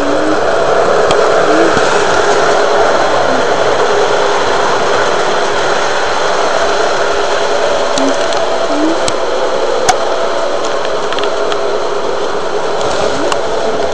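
Electric model train running past close by: a steady whir of its motor and wheels on the track, with a few sharp clicks along the way.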